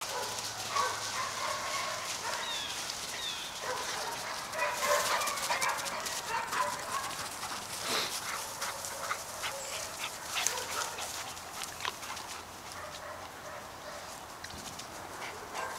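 Dogs playing together: short yips and barks now and then, among scattered brief clicks.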